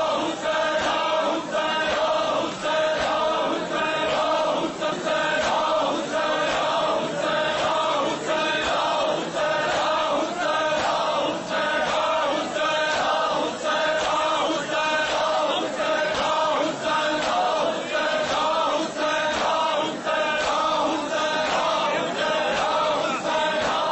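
A group of men chanting a noha, a Shia mourning lament, in unison with a steady, repeating rhythm.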